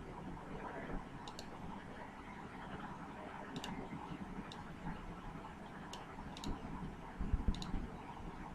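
Computer mouse clicks: several short, sharp clicks, mostly in quick pairs, spread over the few seconds, over steady low background noise. A dull low thump about seven seconds in is the loudest sound.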